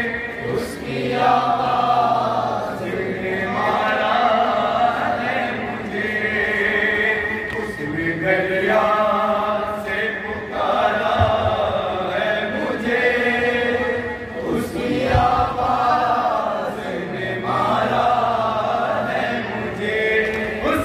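Noha recited in Urdu: a lead male voice chanting a lament into a microphone, with a group of men chanting along with him in long sung phrases.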